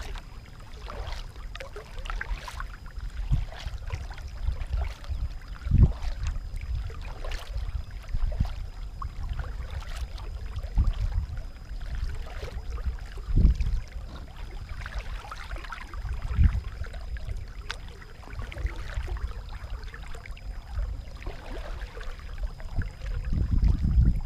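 Kayak paddle strokes: a double-bladed paddle dipping and splashing into calm water every second or so, over a low rumble with a few louder low thumps.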